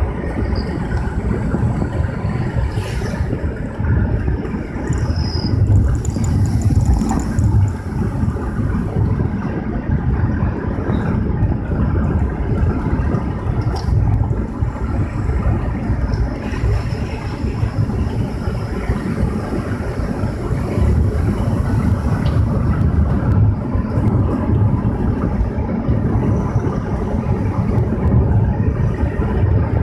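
A vehicle driving along a road: a steady low rumble of engine and tyre noise.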